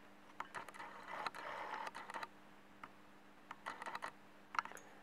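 Faint handling noise: scattered small clicks and rustles as a metal key and a fabric case are moved in the hand, in two clusters with a pause between.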